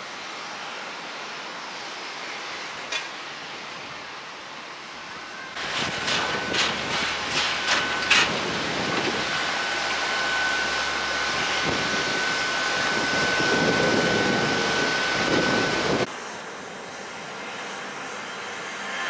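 Jet aircraft noise at an airport apron: a steady hiss of engines and ground equipment, a few clicks about six to eight seconds in, and a steady high whine lasting several seconds. Near the end the sound drops to fainter, distant jet noise as an airliner climbs away after takeoff.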